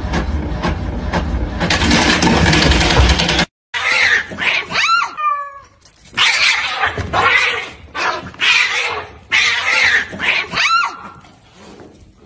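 An inkjet printer runs with evenly spaced clicks, then a louder steady noise that stops abruptly a few seconds in. After that, two cats yowl at each other in repeated drawn-out calls that rise and fall in pitch, while one lunges at the other.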